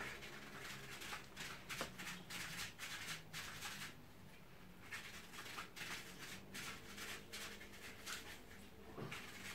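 Paintbrush bristles being scrubbed and worked in a bucket of hot soapy water: a fast, faint run of scratchy rubbing strokes that pauses about four seconds in and again near the end.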